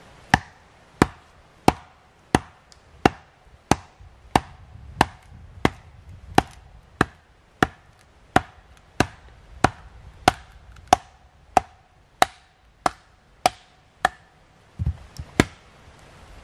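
Sharp wooden knocks, about one and a half a second and some twenty in a row: a hatchet being batoned, its head struck again and again with a wooden baton to drive the blade down through a piece of wood on a chopping block. The knocks stop about fourteen seconds in, and a few duller thuds follow.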